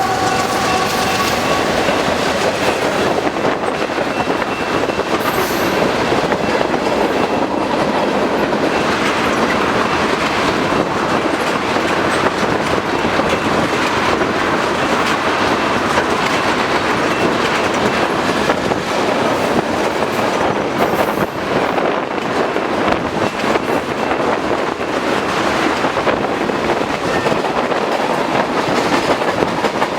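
Freight train passing, its rail car wheels rolling over the track in a steady clatter. The last of a locomotive horn blast fades out in the first second or two.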